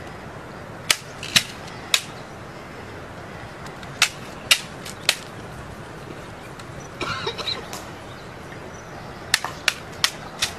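White-gloved hands slapping and handling a wooden-stocked rifle during a ceremonial rifle inspection: sharp slaps and clicks in spaced groups of three or four, with a short rattle of the rifle about seven seconds in.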